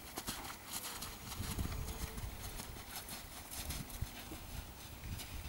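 Horse's hoofbeats on sand as it moves on a circle around the handler, with an uneven low rumble underneath.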